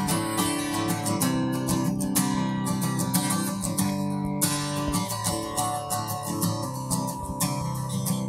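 Acoustic guitar played solo, strumming chords with no voice over it.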